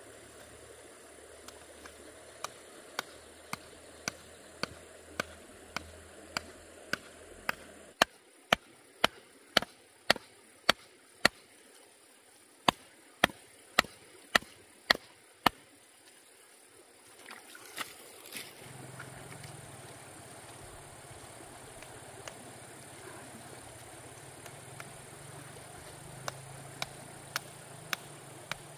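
Sharp blows on bamboo, about two a second. The blows grow louder, stop about halfway through, and start again near the end.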